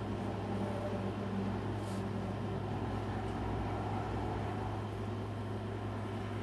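A steady low mechanical hum with an even hiss above it, unchanging throughout.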